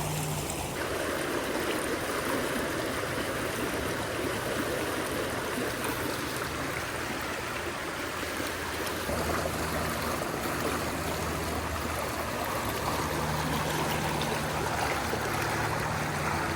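A stream flowing steadily, a constant rush of running water.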